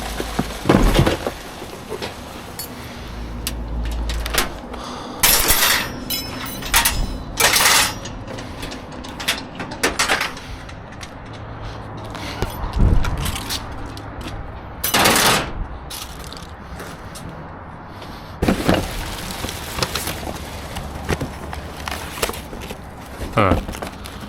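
Scrap and debris being rummaged through and tossed in a metal dumpster: irregular clanks, knocks and rattles, with a few louder bangs.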